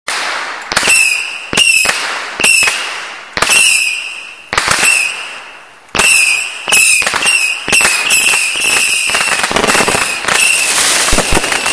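Backyard consumer fireworks going off. A string of sharp shots comes about once a second, each trailing off in a short high whistling fizz. From about nine seconds in they merge into a dense, continuous crackling barrage of many shots at once.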